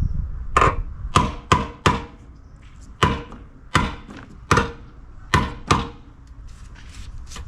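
A series of about nine sharp knocks at an uneven pace, some in quick pairs.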